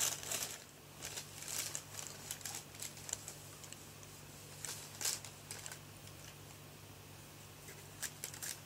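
Thin plastic shopping bag crinkling and rustling as a cat shifts about inside it, in scattered bursts with a quieter stretch before a last flurry near the end.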